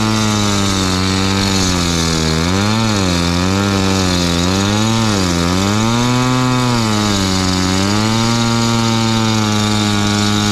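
Gas-powered concrete saw cutting asphalt, the engine running at high speed. Its pitch dips and recovers several times in the middle as the blade bogs under load in the cut.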